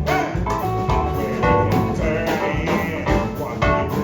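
Live blues-rock band playing, with electric guitar and drum kit.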